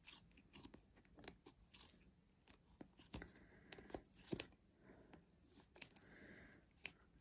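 Small scissors snipping through wrapped strands of acrylic yarn: a run of faint, irregular snips. The blades are not very sharp.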